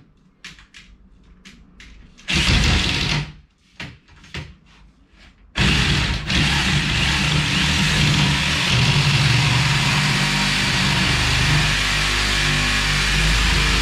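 Electric jigsaw sawing a skirting board: a few light clicks, a short run of the saw about two seconds in, a few brief pulses, then from about halfway through it runs and cuts steadily.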